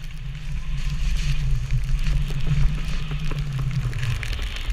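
Skis sliding through powder snow: a steady hiss with small crackles, over a low rumble of wind on the pole-mounted camera's microphone.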